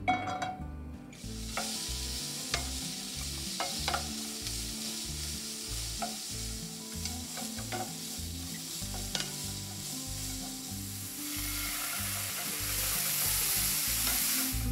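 Vegetables sizzling in hot oil in a frying pan, starting about a second in, as julienned carrots are stirred with a wooden spatula that clicks and scrapes against the pan. The sizzle grows louder near the end, when sliced mushrooms fry with soy sauce.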